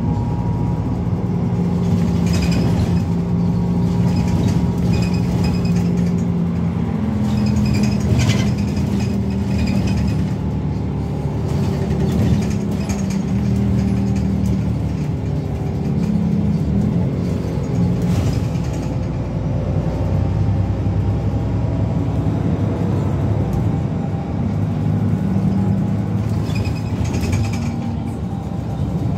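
Inside a moving city bus: the engine and drivetrain drone steadily, the pitch stepping up and down every few seconds as the bus speeds up and slows, with light interior rattles.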